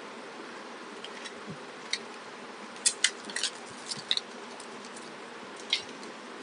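Clear plastic blister packaging crackling as it is handled: a few sharp crinkles, clustered about two to four seconds in and once more near the end, over a steady hiss.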